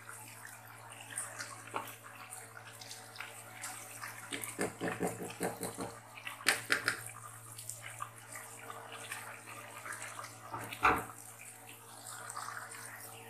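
A pan of vegetable pulao bubbling at the boil, its rice water still cooking off before the pot goes on dum. A spatula clicks and scrapes against the pan a few times around the middle, then gives a single sharp knock near the end.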